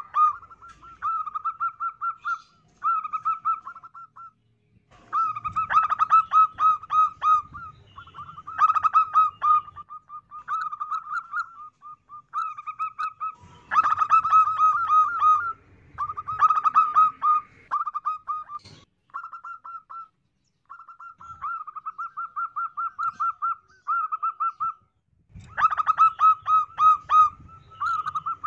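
Female zebra dove (perkutut) singing: repeated phrases of rapid staccato cooing notes, separated by short pauses, some phrases louder than others.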